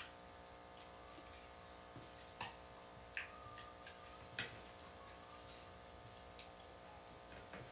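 Near-silent room with a faint steady hum and a few small sharp clicks of metal cutlery against a plate as someone eats, one about three seconds in ringing briefly.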